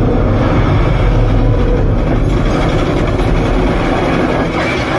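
Jet engines of a large military cargo plane running on the runway: a loud, steady, deep rumble.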